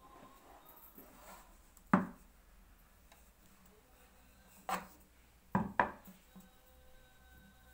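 Wooden rolling pin and dough sheets being handled over a wooden table and a round aluminium baking tray: four short wooden knocks, the loudest about two seconds in and a close pair near six seconds, with soft rubbing of dough in between.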